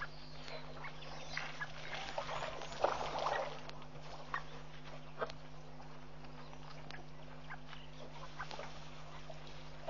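African elephants drinking and jostling at a waterhole's edge: scattered short splashes and shuffles, a little louder about three seconds in, over a steady low electrical hum.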